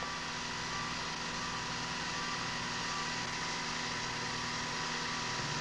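Steady mechanical hum with faint hiss, unchanging throughout.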